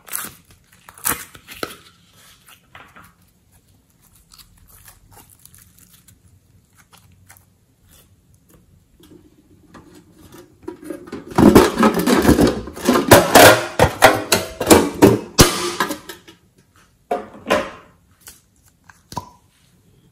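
Slime and soft clay handled by hand: sticky clicks and crackles. They thicken into a loud, dense run of crackling for several seconds in the middle, then thin out to a few clicks near the end.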